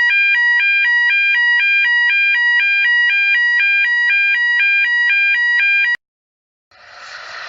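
Spaceship alarm sound effect: a loud electronic two-tone alarm flipping between a higher and a lower pitch about twice a second, cutting off suddenly about six seconds in. Near the end a hissy, static-like noise starts.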